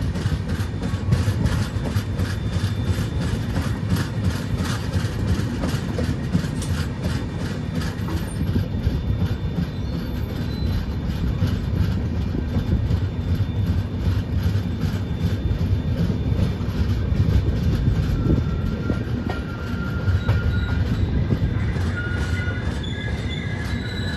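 Dakshin Express passenger train running on the rails: a steady low rumble with rattling clatter from the wheels and coach. A thin, high wheel squeal comes in over the last few seconds.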